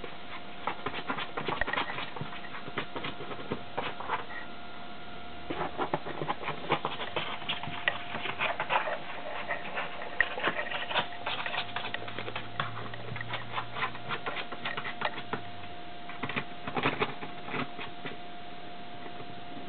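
Miniature pinscher–border terrier puppy scratching and pawing at a cardboard box: quick, irregular scratchy clicks in bursts with short pauses, over a faint steady hum.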